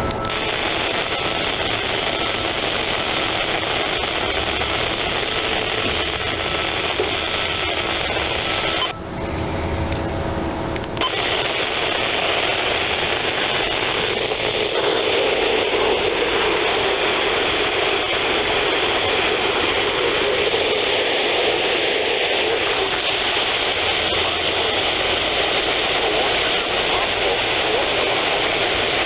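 Steady static hiss from a radio receiver on a weak signal, with a brief drop-out about nine seconds in lasting about two seconds.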